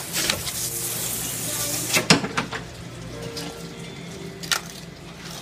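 Knife slicing and scraping along a whole salmon on a plastic cutting board, with a wet hiss and sharp knocks of the fish and blade against the board, the loudest about two seconds in. Faint music underneath.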